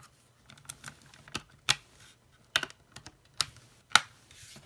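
Irregular sharp clicks and snaps of a Covrware Aegis phone case being pressed and levered over the edge of a ZTE Grand X4 phone. There are several clicks spread across a few seconds, the loudest about four seconds in. The case is a very tight fit.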